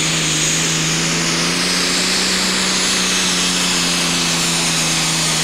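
Triple-turbocharged John Deere superstock pulling tractor's diesel engine running flat out under load as it drags the weight sledge, holding a steady pitch with a high whine over it.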